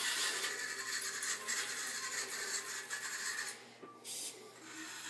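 Arrick A-Robot's drive motors whirring as the small wheeled robot drives over a wood floor, stopping briefly a little under four seconds in and then starting again as it bumps the wall and turns.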